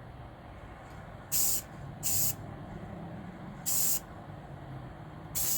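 Aerosol spray-paint can giving four short bursts of spray, each about a third of a second long, laying a color coat of Rust-Oleum Apple Red on a model car body.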